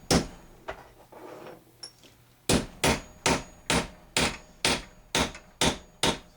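Hammer blows driving a homemade steel sizing ring down over the brass base of a .410 shotgun hull to resize it, the hull held in a length of pipe. One blow just at the start, a pause of about two seconds with a couple of light clicks, then a steady run of nine blows about two a second.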